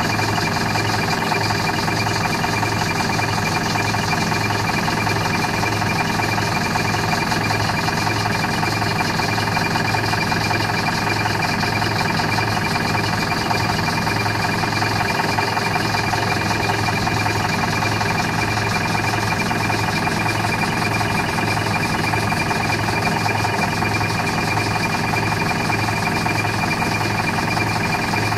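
Optare Solo bus's diesel engine idling, steady and loud with a regular pulsing beat, sounding terrible; the uploader takes it for a worn-out, poorly maintained engine.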